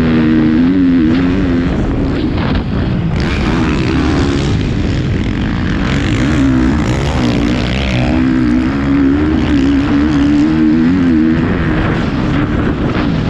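Motocross bike engine revving hard while being ridden on a dirt track. Its pitch rises and falls constantly with the throttle and gear changes, with a short drop in revs about two and a half seconds in.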